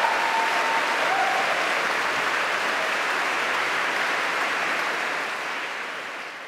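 A large seated audience applauding steadily, the applause fading out near the end.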